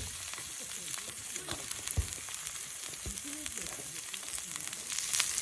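Food sizzling in a hot pan, a steady hiss with scattered pops, getting louder near the end.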